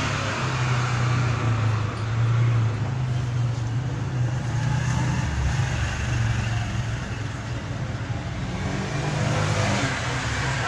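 A motor engine running steadily with a low hum, over a haze of background noise.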